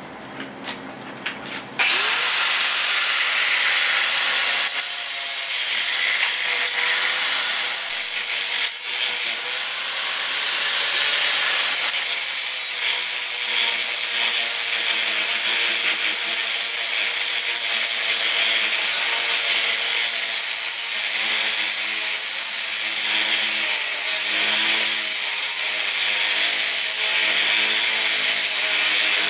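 A few light knocks, then an angle grinder starts about two seconds in and grinds a welded steel muffler flange held in a vise: a loud, steady high whine with a scraping rasp. It eases off briefly around nine seconds in, then bites again.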